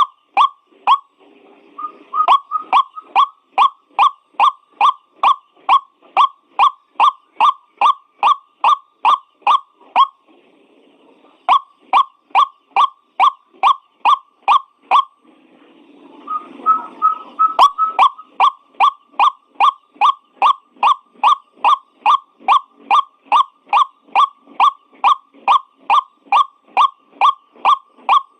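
White-breasted waterhen (ruak-ruak) calling, a long monotonous series of short, harsh, downward-sliding notes at about two and a half a second, used as a lure call. The series breaks off briefly twice, and a jumble of overlapping calls comes in about two-thirds of the way through.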